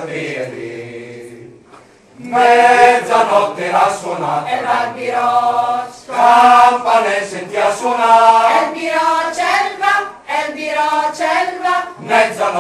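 Mixed choir of men and women singing a cappella. A held chord fades away over the first two seconds, then after a short break the full choir comes back in loudly and sings on in phrases.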